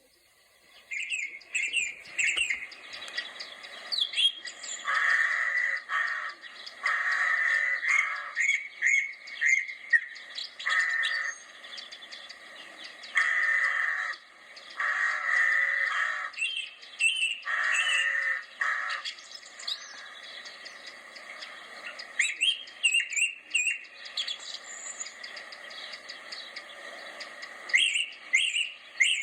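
Several birds chirping and calling, with many short chirps that slide in pitch and a run of louder, harsher calls about half a second to a second long, repeated from about five seconds in until about nineteen seconds.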